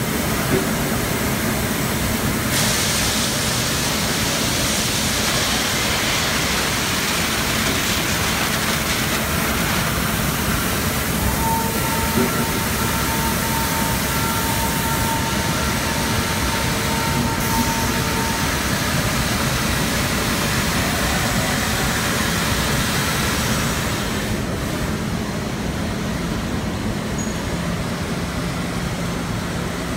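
Paper-mill rewinder running: a loud, steady machine noise with a low hum, the hiss easing a little about three-quarters of the way through.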